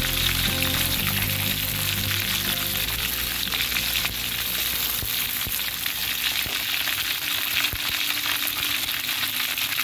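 Chicken gizzards sizzling steadily as they fry in hot oil in a wok. Tongs clatter against the pan a few times as the pieces are turned.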